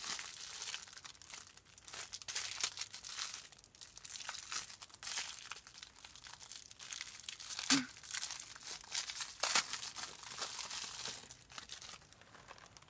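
Thin plastic wrapping crinkling and tearing in irregular bursts as hands unwrap a squishy toy. It thins out near the end.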